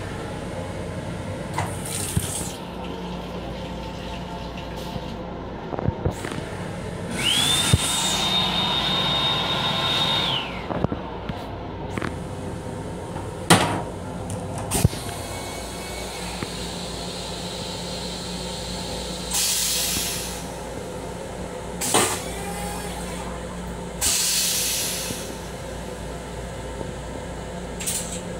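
Restroom fixtures of an LIRR M7 railcar in use over the car's steady low running hum. The sink water runs for about three seconds with a high whistle, then come sharp clicks and clunks from the toilet lid and fittings and two short hissing rushes, typical of a toilet flush.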